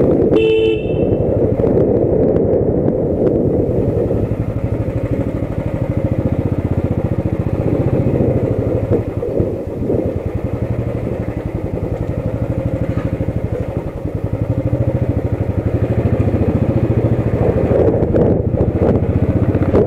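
Motorcycle engine running steadily under way. A short horn beep sounds about half a second in.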